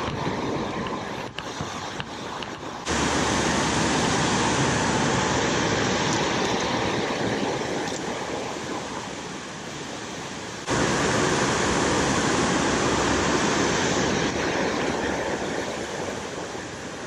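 Water rushing over a low concrete weir, a steady loud whitewater noise spread across all pitches. It jumps suddenly louder about three seconds in and again about eleven seconds in.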